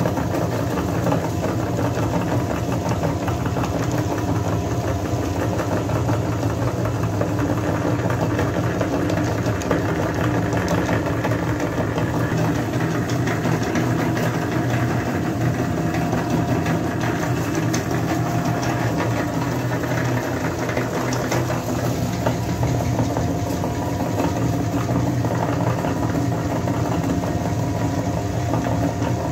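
Meat grinder running steadily while grinding dry cookies into crumbs: a constant motor-like hum with an even grinding rattle that never changes.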